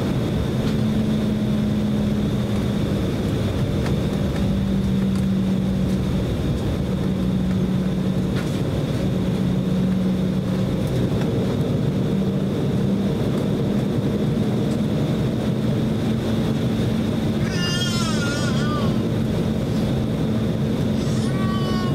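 Steady cabin noise of an Embraer E190 airliner taxiing, its GE CF34 turbofans at low power with a steady hum and a faint high whine. Brief high wavering sounds come twice near the end.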